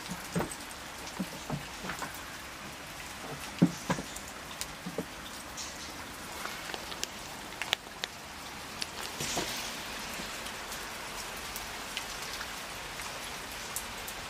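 Steady rain falling, heard from under a canopy, with many scattered sharp drips and a few low knocks close by.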